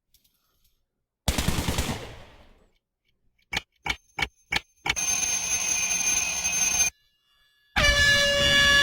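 A run of canned sound effects played back one after another from a sound-effect app: a loud burst that dies away over about a second, then five sharp gunshot-like cracks in quick succession, then a steady noisy sound with a high tone for about two seconds that cuts off suddenly, and near the end a ringing, alarm-like sound of several steady tones.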